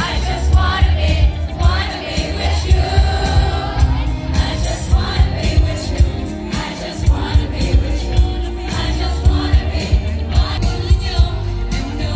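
Live amplified pop music from a concert stage: several female singers on microphones over a heavy, pulsing bass beat through the PA system.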